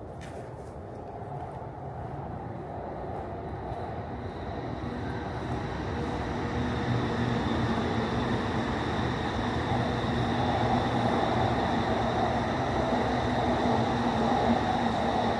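A train running past, growing louder over the first several seconds and then holding steady, a rumble with a few steady tones over it.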